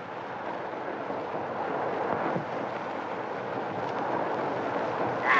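Steady noise of a moving train, an even rushing sound with no distinct wheel beats, heard through the hiss of an old optical film soundtrack.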